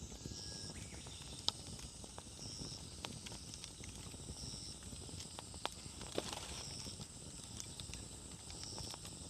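Wood campfire burning with a steady low crackle and a few sharp pops, the loudest about one and a half seconds in.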